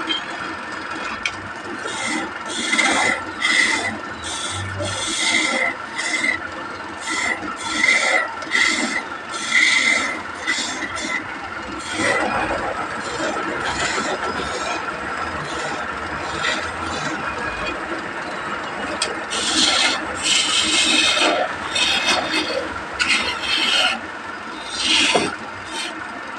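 Wood being worked by a machine: a run of short rasping strokes, about one a second, over a steady machine hum, easing off to a smoother rubbing noise in the middle before the strokes come back.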